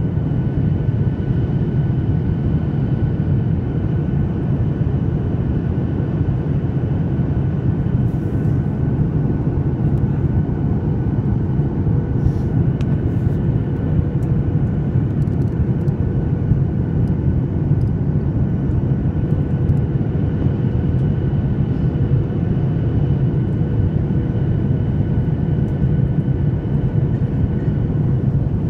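Boeing 737-800 cabin noise in flight: a steady, unchanging rumble of the CFM56 engines and airflow, with a few faint steady tones riding above it. A few faint clicks come around the middle.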